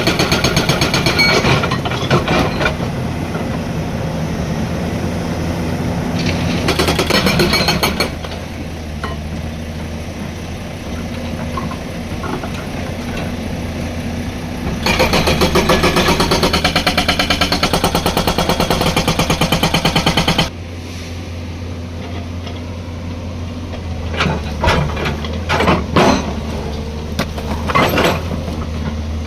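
Hydraulic rock breaker on a Hyundai 215 excavator hammering hard stone in rapid, evenly spaced blows. It runs in bursts: briefly at the start, again after about seven seconds, and for about five seconds past the middle. The excavator's diesel engine runs steadily underneath, and there are scattered knocks near the end.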